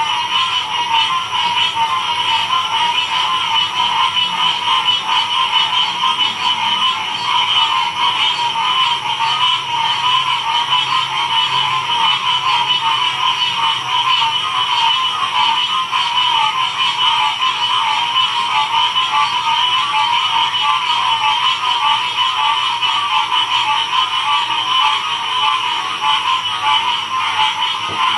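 Dense frog chorus: many frogs calling at once, overlapping into a steady, unbroken din with a mid-pitched layer and a higher, shriller layer.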